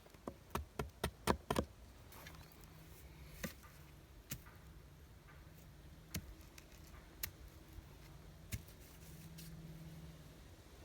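A quick run of sharp knocks in the first second and a half, then scattered single clicks, with an insect buzzing faintly from about two seconds in, louder near the end.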